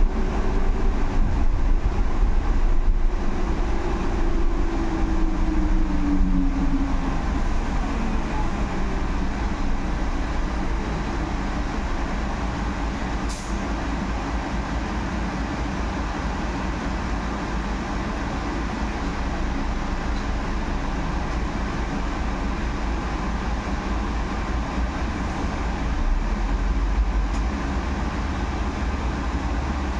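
Inside a Solaris Urbino 18 IV electric articulated bus on the move: steady road and running-gear rumble, with the electric drive's whine falling in pitch over the first several seconds as the bus slows.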